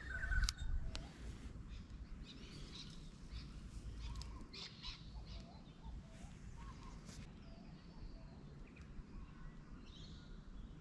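Birds chirping and calling, short repeated chirps over a low rumble of wind on the microphone, with a few light clicks. The rumble is strongest about the first second.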